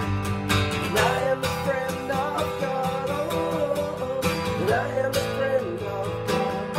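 Acoustic guitar strummed in a steady rhythm, with a man singing a slow melody over it from about a second in.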